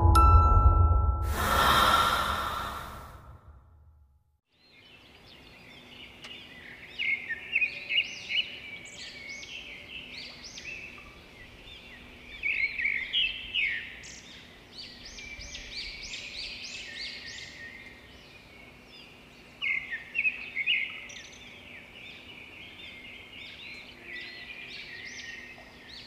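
Music ends in the first second, followed by a short rush of noise and a moment of silence. Then many birds chirp and call in quick overlapping bursts in the mangrove forest, over a faint steady hum.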